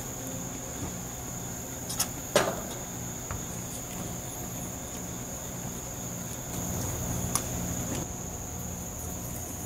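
Steady high-pitched drone of insects, with two sharp knocks about two seconds in, the second the loudest, and a lighter click about seven seconds in.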